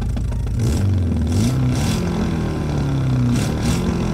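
Synthesized inline four-cylinder engine, a Revvolution preset modelled on the Stöber R200 Spezial, revved with no gear engaged: the pitch climbs quickly and drops back a few times, with a short hiss at the top of each rev.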